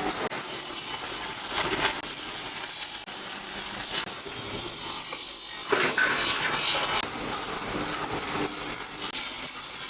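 Factory machinery running with a steady, hissing mechanical noise, cut off and changing abruptly a few times.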